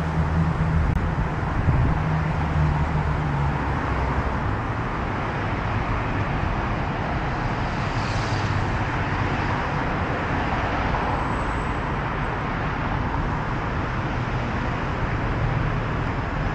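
Steady road traffic: engines and tyre noise from cars passing on a multi-lane city street, with a low engine hum in the first few seconds.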